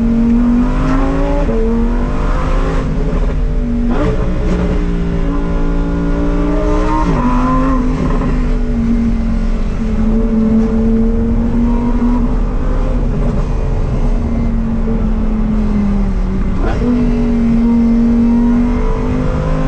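Lamborghini Huracán STO's naturally aspirated 5.2-litre V10 under way. It climbs in pitch as it accelerates, with sudden drops at gear changes about a second and a half in, around four seconds and around seven seconds. It then holds a fairly steady pitch at moderate revs, with another gear change near the end.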